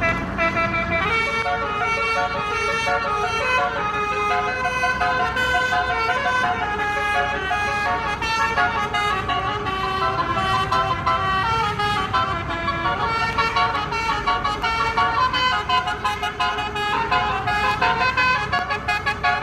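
Basuri multi-tone bus horn ('telolet') playing a melody: a continuous run of horn notes stepping up and down in pitch, over a low rumble.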